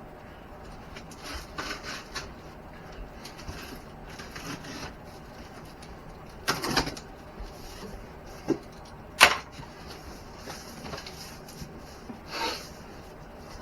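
Cardboard box and packaging being handled and opened by hand: scattered clicks, knocks and rustles, with a cluster of knocks about six and a half seconds in and the sharpest click about nine seconds in.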